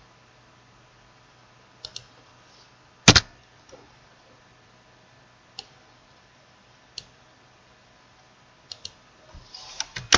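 Computer mouse and keyboard clicks: a double click about two seconds in, a loud sharp double stroke about three seconds in, single clicks a second or two apart, then a quick run of keystrokes near the end.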